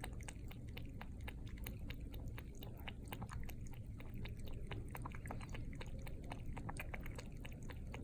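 A house cat lapping water with its tongue: quick, wet clicking laps, several a second, going on steadily.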